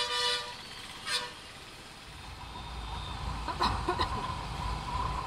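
A vehicle horn beeps twice: a half-second toot, then a shorter one about a second later. From about two seconds in, the low rumble of the motorbike underway rises, and a steady whine joins past the middle.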